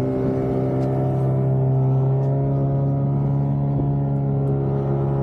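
Small fishing boat's outboard motor running at a steady speed, a constant pitched drone with an even low rumble beneath it.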